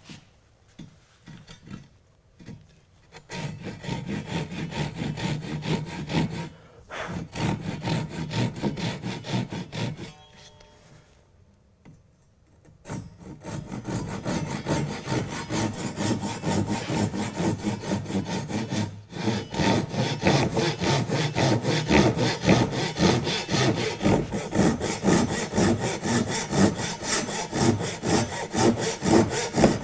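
Japanese pull saw crosscutting a square length of wood, rasping in quick, even strokes. Light strokes at first, then steady sawing from about three seconds in; it stops for a couple of seconds around the middle and resumes with fuller, louder strokes.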